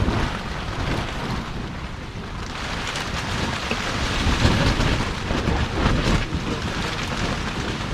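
Heavy rain and gusting wind of a thunderstorm, with wind rumbling on the microphone. It grows louder about a third of the way in.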